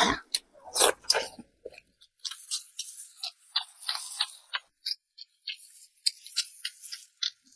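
Close-miked mouth sounds of chewing a pork skin roll: irregular quick clicks and smacks, a few fuller ones in the first second and then mostly light, high clicks.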